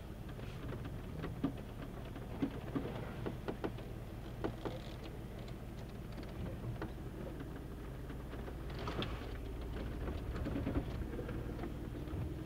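An off-road vehicle crawling slowly down a rocky dirt trail: a steady low engine rumble with scattered crunches, clicks and knocks of tyres over gravel and rock.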